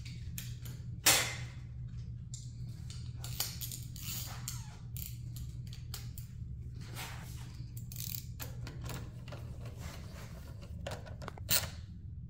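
Scattered clicks and light metallic clinks of hand tools being handled at a metal tool cabinet, with a sharp knock about a second in and another near the end, over a steady low hum.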